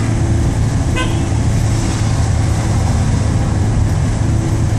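Steady low engine and road rumble heard from inside a moving vehicle's cabin. A brief high tone sounds about a second in.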